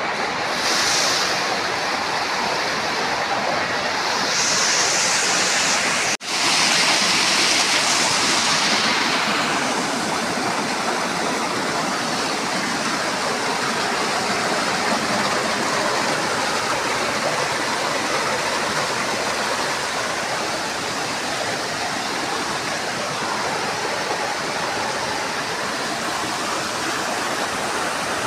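Stream water cascading over boulders in small waterfalls: a steady, full rush of water. It cuts out for an instant about six seconds in.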